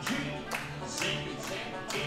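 Country and bluegrass show music from an animatronic stage show, with a steady beat of about two strokes a second.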